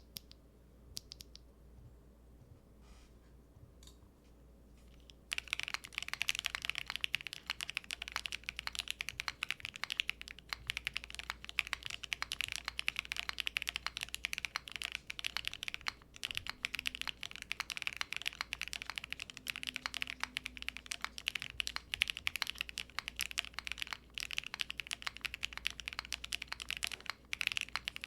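Typing on a mechanical keyboard with Keygeek Y3 linear switches in an aluminium plate with no foam. A few separate keystrokes come first, then from about five seconds in a steady, rapid run of key clacks.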